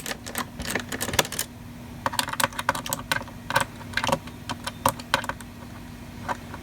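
Irregular sharp clicks and taps of a small screwdriver working at the screws of an iBook G4's RAM bay cover, with a faint steady hum underneath.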